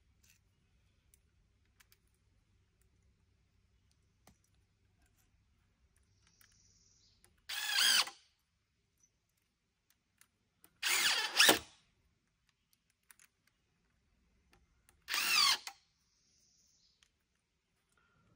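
Cordless power driver running screws into wooden rack timbers: three short bursts, each under a second long, a few seconds apart.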